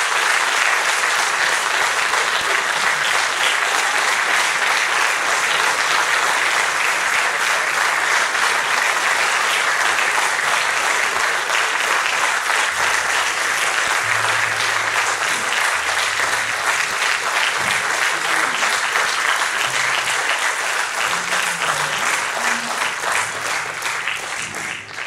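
Audience applauding steadily for a long stretch, dying away near the end.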